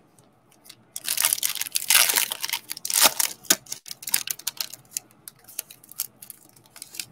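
Foil trading-card pack wrapper being torn open and crinkled by hand. The crackling is dense and loudest for a couple of seconds starting about a second in, then thins to lighter, scattered crackles and rustles.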